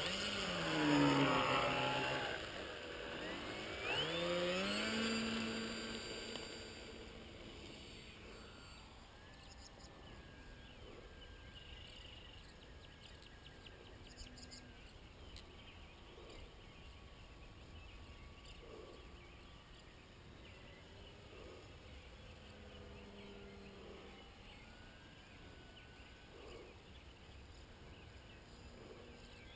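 Electric motor and propeller of a FunCub RC model plane whining as it throttles up for takeoff, its pitch gliding up and down, loudest in the first few seconds. The sound then grows faint and stays faint as the plane flies off.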